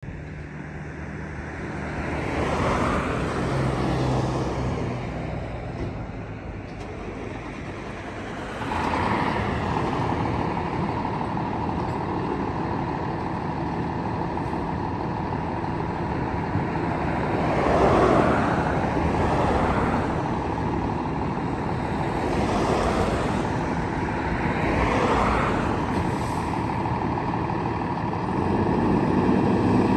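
Road traffic passing several times, each pass swelling and fading. From about nine seconds in, a fire engine idles steadily underneath.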